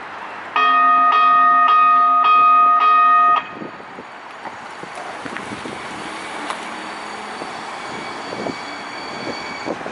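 NJ Transit light rail car sounding its warning gong, about five loud rings half a second or so apart, followed by the steady rolling noise of the car approaching with a faint high whine.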